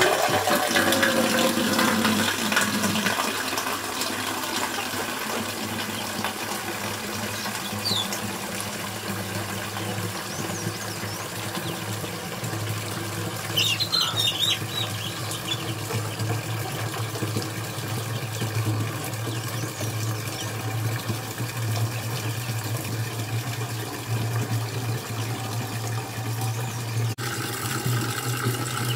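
A thin stream of water from a tap spout pouring steadily into the narrow neck of a metal water jug, splashing as the jug fills.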